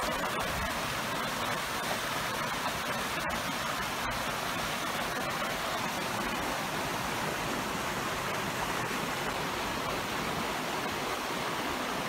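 Hot thermal spring water rushing down a concrete channel: a steady, even rush of water.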